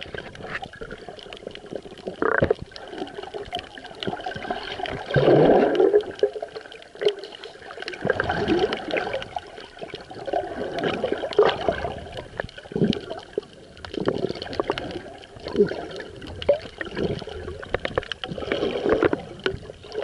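Water sloshing and gurgling against a Sony action camera's waterproof housing held just below the surface, with a swish every two to three seconds and scattered small clicks.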